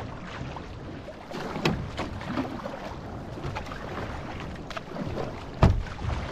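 Water splashing and rushing along an outrigger canoe as it is paddled, with scattered sharp splashes from the paddle strokes. A single loud thump comes near the end.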